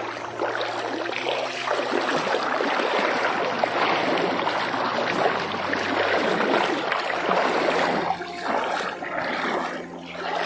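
Loud, dense splashing of river water as a hooked hampala fish is fought at the surface and reeled in. The splashing eases about eight seconds in.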